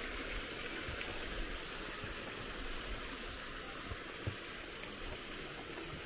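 Steady rush of falling and running water from the Samodivsko Pruskalo mountain waterfall and its stream, with a few soft thumps.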